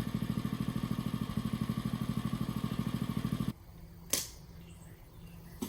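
Gas-engine vibratory plate compactor running, a fast even pulsing chug, which cuts off suddenly about three and a half seconds in. A sharp knock follows shortly after, and another near the end.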